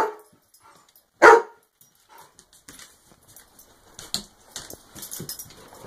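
A standard poodle barks sharply, once right at the start and once more about a second in, then only faint rustling and small clicks follow.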